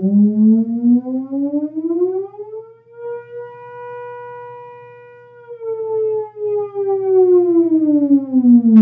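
Theremin sounding one slow siren-like wail: the tone glides up over about three seconds, holds steady, then sinks slowly back down. A faint steady low hum lies under it, and a sharp click comes near the end.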